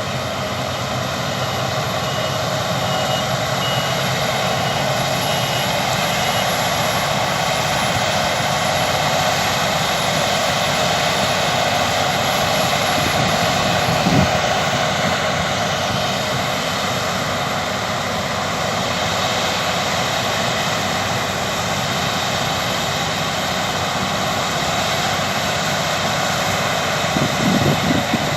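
Claas Lexion 660 combine harvester at work in spring barley: a steady, loud mechanical drone of engine and threshing gear that swells a little toward the middle. There is a short thump about halfway through.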